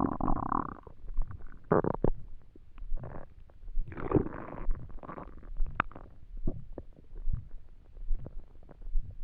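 Empty stomach growling and gurgling from hunger: a string of squeaky growls and gurgles, the longest about four seconds in, with small pops and clicks between them and one sharp pop near six seconds.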